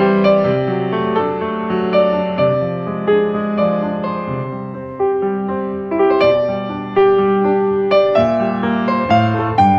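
Background piano music: a slow, gentle melody of struck notes, each fading after it sounds.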